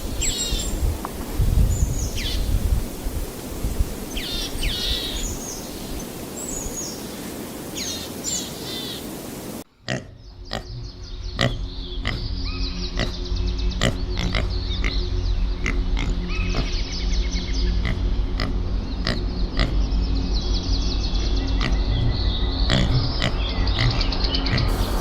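Animal sounds: low grunting with high bird chirps over it, then after a sudden cut about ten seconds in, a steady drone of held tones with many sharp clicks and chirps.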